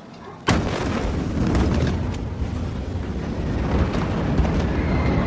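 Blast wave of a massive ammonium nitrate explosion reaching the microphone about half a second in: a sudden sharp crack, then a continuous loud deep rumble.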